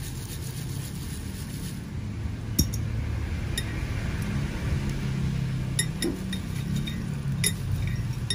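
A hand stirring rolled paper slips inside a round glass jar, with a few scattered sharp clinks against the glass from a few seconds in, over a steady low hum.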